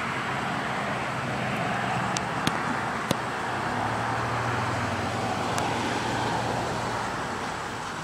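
Steady background road-traffic noise, with a low engine hum swelling from about four seconds in and a few faint clicks.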